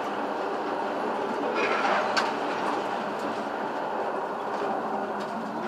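Tram on its track, heard from inside the driver's cab: a steady running noise with a few faint clicks, briefly brighter about two seconds in.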